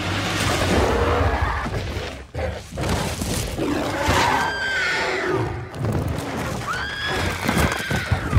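Monster-fight film soundtrack: loud animal cries and crashes over music, with two shrill, wavering cries, one about four seconds in and one near the end, and a few heavy thuds at the close.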